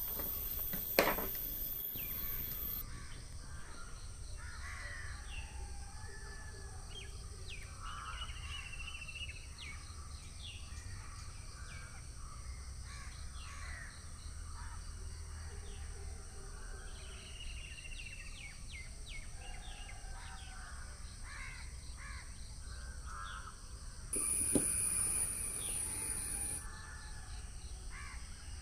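Birds calling on and off over steady background noise, with a sharp click about a second in and a short high-pitched whine a few seconds before the end.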